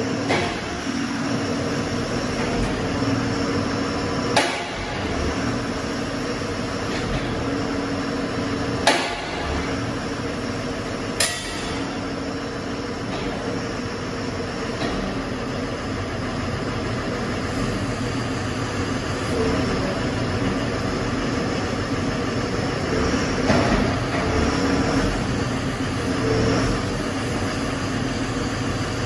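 Doosan wheeled excavator's diesel engine running steadily while its hydraulics work a 360° rotating grapple, with a humming tone that comes and goes. Three sharp clanks are heard in the first half.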